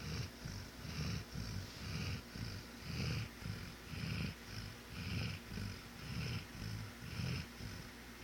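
Dog snoring rapidly in deep sleep, a fast even rhythm of about two snores a second, low rumbling strokes alternating with higher hissy breaths.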